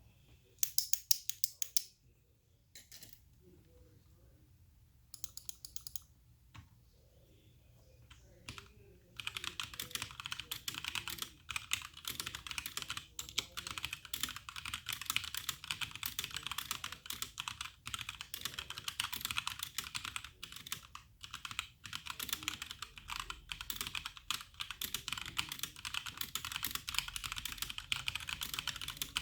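Typing on a HyperX Alloy Origins Core mechanical keyboard with HyperX Aqua tactile switches. A quick run of keystrokes about a second in and a few scattered presses, then continuous fast typing from about a third of the way through.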